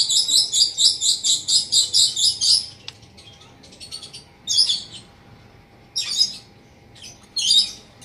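White-rumped shama giving a fast string of high, sharp chips, about five a second, for nearly three seconds, followed by a few shorter bursts of calls spaced a second or more apart.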